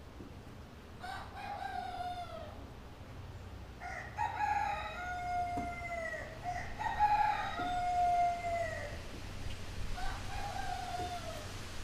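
A rooster crowing four times, the two middle crows long and loudest, each crow ending on a falling note.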